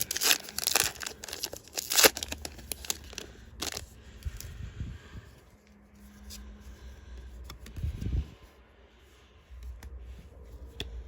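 Foil trading-card booster pack being torn open and its wrapper crinkled, busiest in the first few seconds, then quieter handling with a soft thump near the end.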